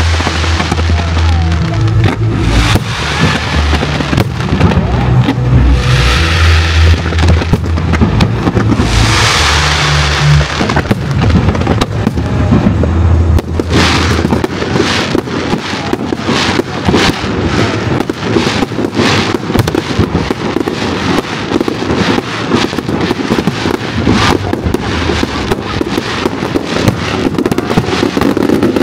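Fireworks bursting and crackling over show music with a strong bass beat. About halfway through the music's bass drops away and the fireworks become a rapid, dense run of bangs and crackles.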